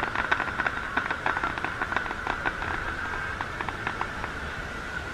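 Aerial fireworks crackling: a quick run of sharp little pops that thins out after about three seconds.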